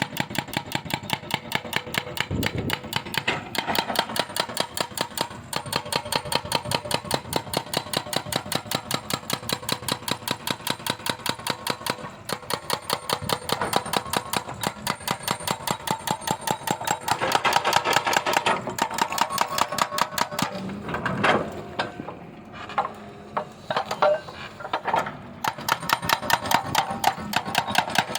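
Excavator running with a fast, even mechanical knocking, about five beats a second. About three quarters of the way through it breaks into irregular clatter for a few seconds, then settles back into the steady beat.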